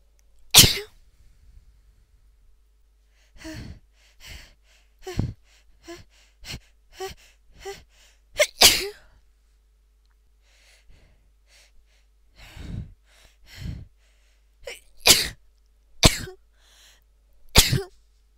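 A woman with a head cold sneezing: one sneeze about half a second in, then a halting run of breathy, gasping build-up inhales leading to a second sneeze near the middle, more build-up breaths, and three sneezes in quick succession near the end.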